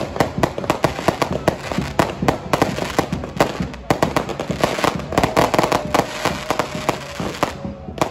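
Fireworks going off in a rapid string of sharp bangs and crackles, several a second, with crowd voices underneath.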